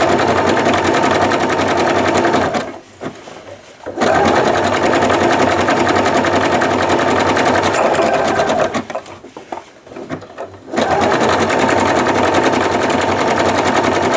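Electric sewing machine stitching a zigzag seam to finish a raw fabric edge, running at an even speed in three runs and stopping briefly twice, about two and a half and eight and a half seconds in.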